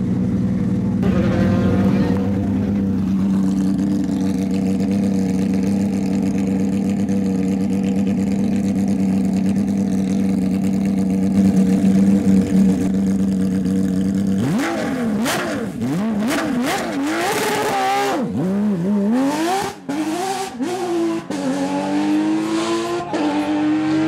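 An engine running with a steady, unchanging drone for about the first fourteen seconds. Then a Porsche 997 GT3 rally car's flat-six engine revs hard, its pitch sweeping up and down several times, and near the end it climbs steadily as the car accelerates.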